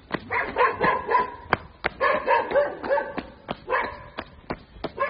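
A dog barking in quick runs of short yips, over steady footsteps at about three steps a second.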